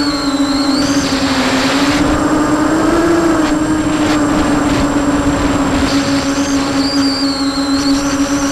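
Brushless motors and propellers of an Emax 250 Pro FPV racing quadcopter, picked up by its onboard Mobius camera: a steady buzzing whine with a high wavering whistle above it. The pitch rises briefly about three seconds in, and the high whistle drops away from about two to six seconds before coming back.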